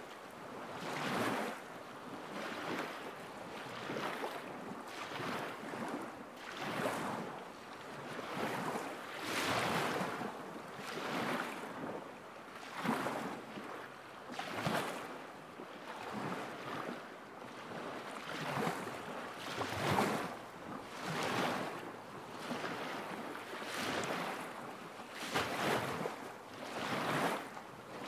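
Small waves lapping at a lakeshore in a steady rhythm, one soft wash about every one and a half seconds.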